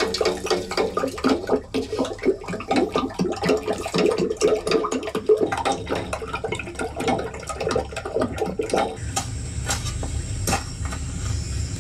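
Wet squelching and sloshing of batter being mixed by hand in a steel bowl, in quick irregular strokes. After about nine seconds it gives way to a low rumble with a few sharp knocks.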